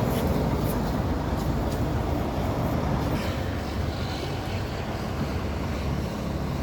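Steady low rumbling noise with no clear pitch or rhythm.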